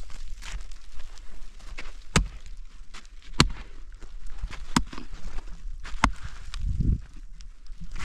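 Sharp knocks repeating about once every second and a quarter, with a duller low thump near the end.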